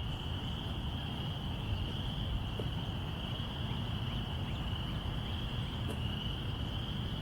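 Chorus of crickets: a steady, unbroken high trill, with a low rumble of background noise underneath.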